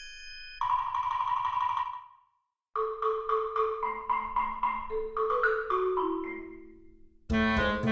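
Background music of short pitched notes, broken by a moment of dead silence about two seconds in, with a louder passage starting near the end.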